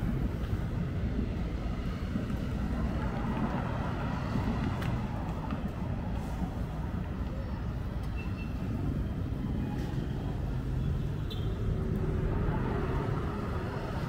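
City street ambience: a steady rumble of vehicle traffic, with a few faint clicks and short tones over it.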